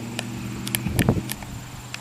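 A steady low mechanical hum with several sharp clicks over it, the loudest about a second in.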